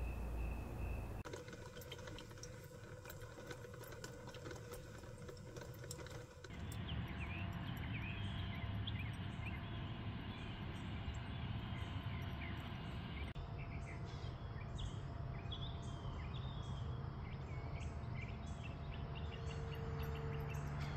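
Outdoor morning ambience: birds chirping over a low steady rumble, the background changing abruptly a few times. A steady high insect tone runs through the first second.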